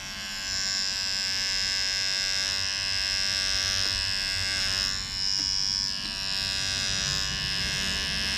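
Vintage T9 cordless electric hair trimmer switching on and buzzing steadily as its blade is run over the hair on a forearm. The buzz dips briefly about five seconds in.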